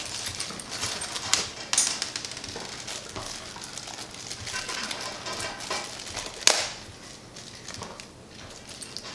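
Handling noises of small parts and packaging: rustling with scattered clicks and knocks, and one sharp knock about six and a half seconds in.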